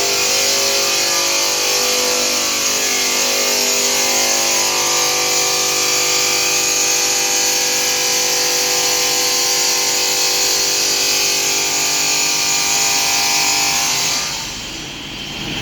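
Electric stone-working machine cutting stone: a loud, steady grinding hiss with a motor whine over it. The noise drops away about a second before the end as the pass through the stone finishes.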